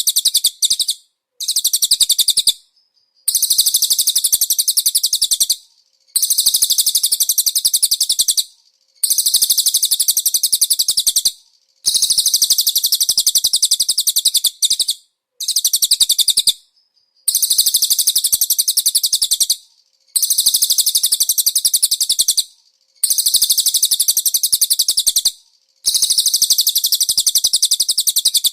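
A songbird repeats rapid, high, rattling trill phrases in the cililin style, each one to three seconds long with short pauses between them, about ten phrases in all.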